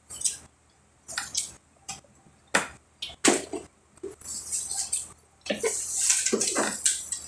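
Close-up wet eating sounds of someone biting and chewing seasoned corn on the cob: scattered short smacks at first, then a denser run of chewing and smacking over the last couple of seconds.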